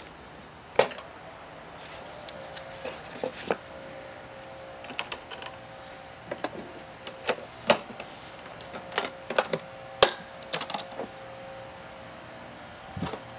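Steel Winchester ammo can being handled: cartridge boxes set inside, then the metal lid closed and latched, giving a scattered series of sharp metallic clicks and clanks. A last knock comes near the end as the can is lifted and moved by its handle.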